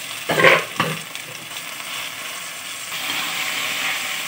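Hot oil sizzling in a metal kadai as ground gongura leaf paste goes into the tempering, with two sharp knocks about half a second in. The sizzle grows louder about three seconds in as a spoon stirs the paste through.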